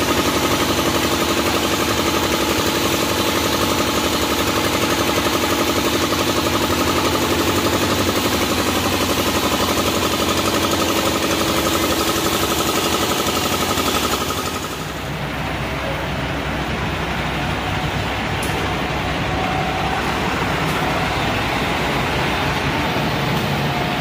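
Engine and pump of a road tack-coat sprayer running steadily with a high hiss, while bitumen is sprayed from a hose onto the road. About fourteen seconds in, this changes abruptly to the lower, duller running of a diesel engine on road-paving machinery.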